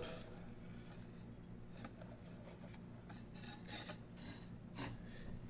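Faint scrapes and rubs of a metal transmission cooler line working in a hand tube bender as the line is bent, a few short ones spread out over a low steady hum.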